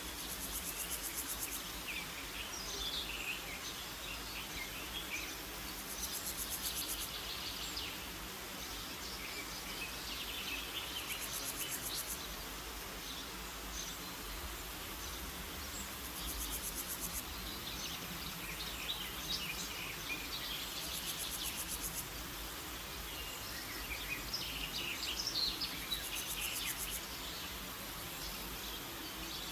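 Woodland ambience: several birds chirping and singing now and then, with a very high insect trill that comes back about every five seconds, each lasting a second or so, over a faint low rumble.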